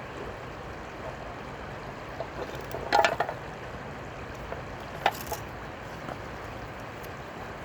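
Water splashing over a steady rush of background water noise: a burst of splashes about three seconds in and a shorter splash about two seconds later.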